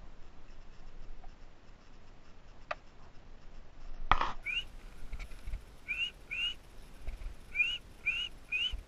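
A sharp crack, then short rising whistled chirps, thrush-like, repeated about six times in quick pairs and threes.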